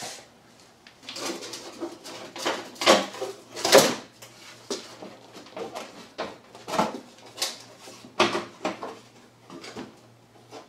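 Irregular knocks, clunks and clatter of car body parts being worked loose and handled: about a dozen sharp hits spread unevenly, some louder than others.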